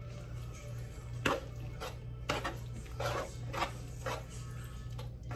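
A spoon scraping and knocking against the side of a stainless steel pot in short strokes while stirring shredded cheese into a thick chili to melt it, over a steady low hum.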